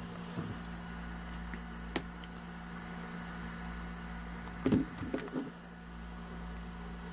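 Handling noise of a smartphone: a couple of small clicks in the first two seconds, then a short cluster of knocks and rubs a little under five seconds in as the phone is picked up off the table. A steady low hum runs underneath.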